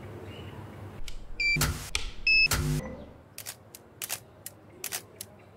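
Studio flash head's control panel being operated by hand: two short electronic beeps, each joined by a loud noisy burst, then a run of about seven sharp clicks over the next two seconds.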